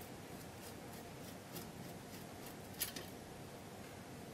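Hand screwdriver with a SpikeBit bit turning a stripped Phillips screw out of a camera body: a few faint short clicks, the loudest a little under three seconds in, over a steady hiss.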